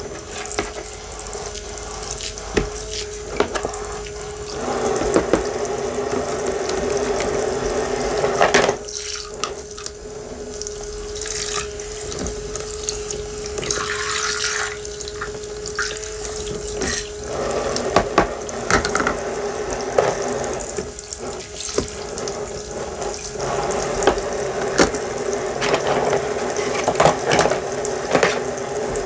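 Water running from a tap into a sink, with a steady hum that drops out for several seconds in the middle and scattered light clicks and taps.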